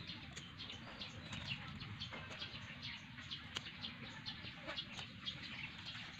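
Scissors snipping sweet potato shoots in an irregular run of short clicks, with leaves rustling and birds chirping in the background.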